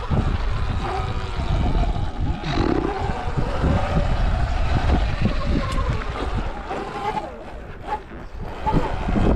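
Sur Ron electric dirt bike ridden over a dirt trail: wind buffeting the microphone, with rumble and knocks from the tyres and chassis over rough ground. The motor whine rises and falls with the throttle, and the bike eases off briefly near the end.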